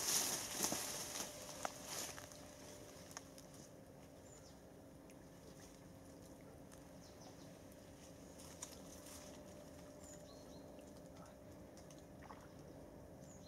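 Rustling and handling noises for about the first two seconds as a set fishing line is pulled in by hand at the reedy water's edge. After that, quiet riverside ambience with a faint steady hum and a few soft clicks.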